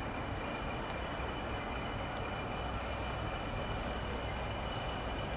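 Diesel train running slowly and steadily, a continuous low engine rumble with a faint steady high whine above it.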